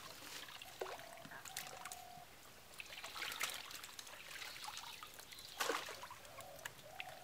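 Water trickling and dripping off wet fish and a plastic sieve as they are scooped out of a cast net, with scattered small splashes and clicks from the fish and the scoop.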